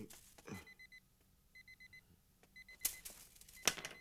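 A mobile phone's electronic ringer beeping in quick bursts of about four beeps, repeating roughly once a second. A bamboo broom scrapes across concrete, and near the end it clatters down onto the ground.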